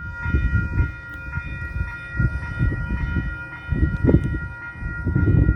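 Train passing with a loud, uneven low rumble and a set of steady high tones held throughout, which cut off abruptly at a clip edit.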